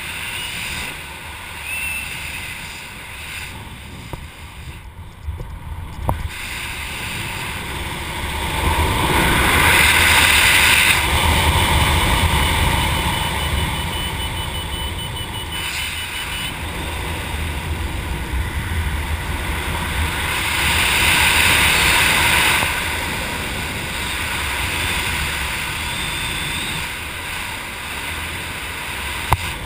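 Airflow rushing over the camera's microphone while flying under an open parachute canopy, a steady rush that swells louder twice, about ten and about twenty seconds in.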